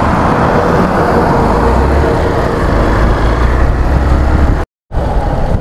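Motorcycle under way: wind rushing over the microphone, with the engine's low drone beneath that grows stronger about two seconds in. The sound drops out for a moment near the end.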